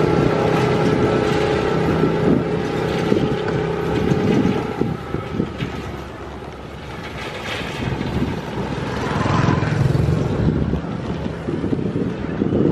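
Small motorcycle engine running close by with a steady hum, fading after about four seconds, then another engine swelling nearer the end, over wind rumble on the microphone.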